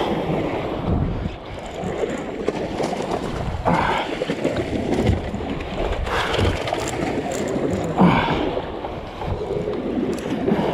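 Wind buffeting the microphone over steady sea and boat noise on an open fishing boat, with three short louder surges about four, six and eight seconds in.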